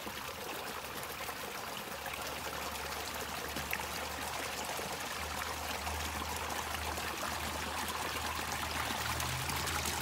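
Steady sound of running water trickling in a stone-lined channel, with a faint low steady hum that comes in about two seconds in.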